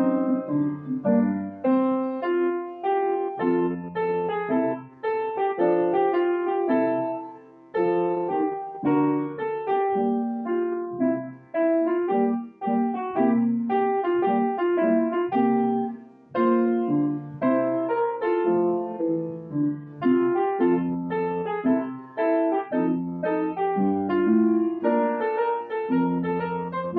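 Background piano music: a steady stream of single notes and chords played at a moderate pace.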